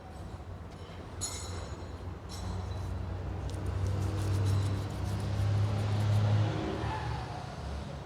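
A motor vehicle's engine running, its low hum swelling for a few seconds and then falling away near the end. Two light metallic clinks come about one and two seconds in.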